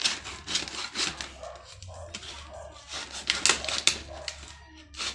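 Stiff clear plastic blister packaging of a set of magnetic welding holders crinkling and snapping as hands pull and pry at it, in an uneven run of sharp crackles and clicks, loudest a little past halfway.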